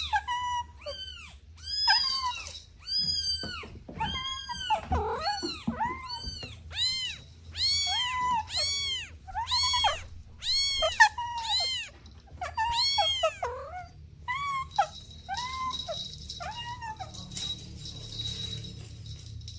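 Kittens meowing over and over: short, high, arching calls, one or two a second. They stop about three-quarters of the way through, leaving a steady high hiss with a thin whine.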